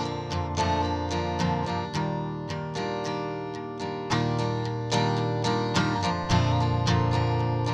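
Background music of a guitar playing a steady run of plucked and strummed notes.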